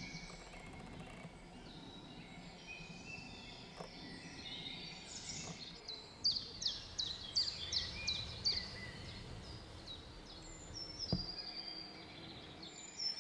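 Several songbirds singing in the distance, with one bird closer giving a run of about eight repeated high notes, roughly three a second, in the middle.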